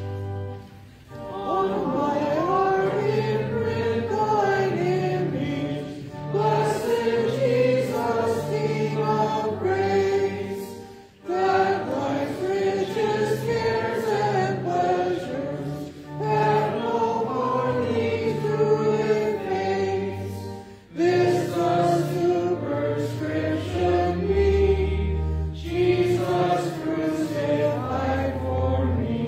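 A congregation singing a hymn in unison with organ accompaniment. The organ holds steady low chords beneath the voices, and short breaks fall between the sung lines about every five seconds.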